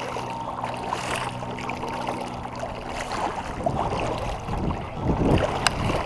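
Kayak paddle strokes splashing in the water, under a steady low hum that stops about halfway through.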